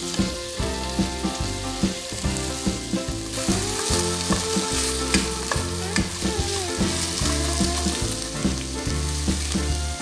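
Chicken breast pieces sizzling in hot oil in a coated wok while a spatula turns them. The spatula clacks and scrapes against the pan many times.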